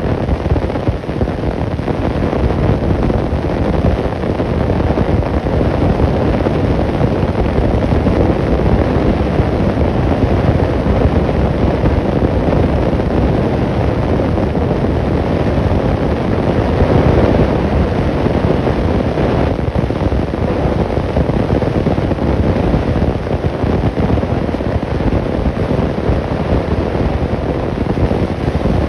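Steady loud rushing noise with no distinct events or calls standing out.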